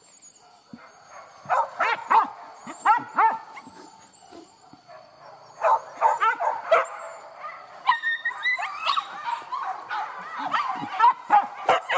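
Leashed hunting dogs yelping and whining in short, high cries that come in several clusters.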